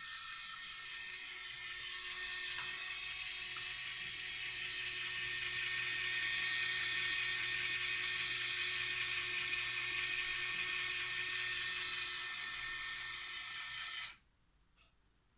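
Small electric motors of a Lego Technic model whirring steadily as they wind string pulley-block hoists, growing somewhat louder, then cutting off suddenly near the end.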